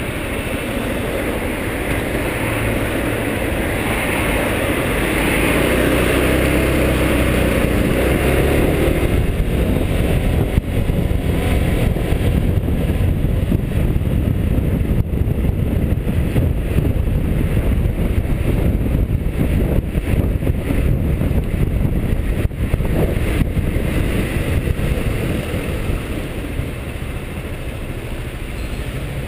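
Honda SH300i scooter's single-cylinder engine running under way in town traffic, heard from a handlebar-mounted camera along with wind and road noise. It grows louder over the first several seconds as the scooter picks up speed, then carries on steadily.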